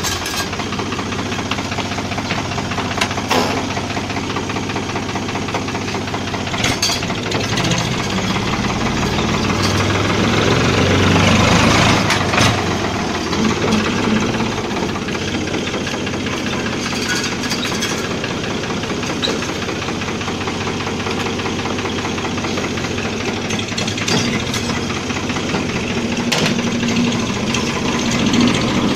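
Ford 3055 tractor engine running as gears are changed on its unsynchronised transmission, with the engine speed adjusted for each shift. The revs climb from about eight seconds to a peak near twelve seconds, then drop back. A few short sharp clicks come through, around three, seven, twelve and seventeen seconds.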